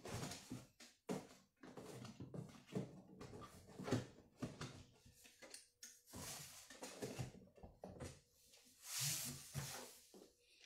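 Items being shifted and packed inside a large cardboard box: irregular knocks, scrapes and rustles, with two longer rustling scrapes about six and nine seconds in.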